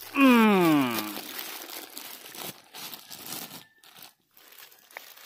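A plastic packet of dry macaroni being torn open and crinkled by hand, crackling and rustling for the first few seconds. At the very start, the loudest sound is a voice-like tone that slides down in pitch for about a second.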